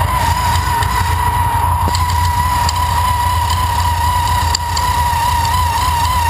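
Supercharged 2010 Camaro engine idling with its Magnuson TVS2300 supercharger, a steady whine over the engine's low rumble, with faint irregular ticks. The knocking noise is one the owner takes for a supercharger bearing going out.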